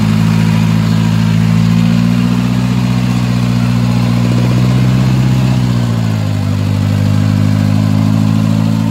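Toyota Land Cruiser hardtop's engine running hard at high, steady revs as the truck works through deep mud. Its pitch dips slightly about six seconds in.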